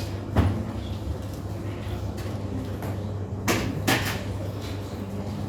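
Hospital room tone, a steady low hum, broken by a sharp knock about half a second in and two more knocks in quick succession about three and a half seconds in.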